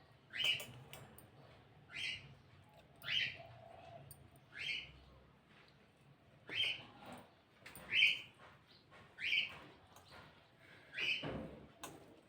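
A bird calling over and over, about eight short rising calls spaced roughly a second to a second and a half apart.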